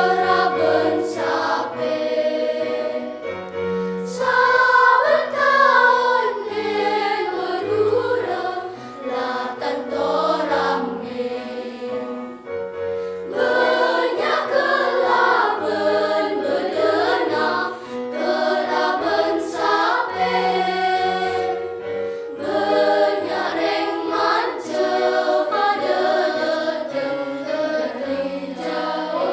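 A children's choir singing in parts, with held low accompaniment notes underneath and brief dips between phrases.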